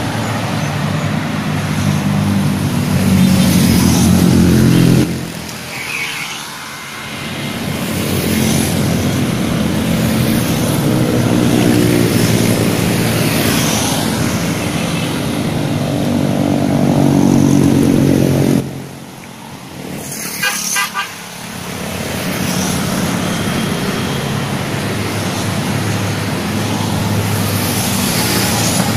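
Road traffic, mostly motorcycles, passing close by, their engines swelling and fading as each goes past. There are two short lulls, and a brief run of high beeps, likely a horn toot, about twenty seconds in.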